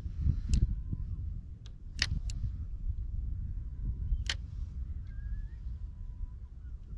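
Steady low rumble with four sharp knocks on a fishing kayak: one about half a second in, a quick pair about two seconds in, and the loudest about four seconds in.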